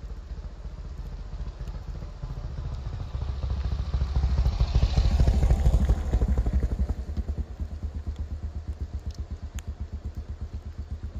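Yamaha SRX single-cylinder four-stroke motorcycle engine approaching, getting louder to a peak about five seconds in. It then slows to a stop and idles with an even, pulsing beat.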